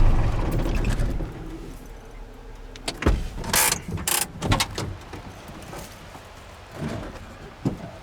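Cummins 4BT diesel in a Ford F-150 running, then winding down and stopping within the first second or so. About three seconds in comes a sharp click, then several short knocks and scuffs as the truck door is opened and the driver gets out.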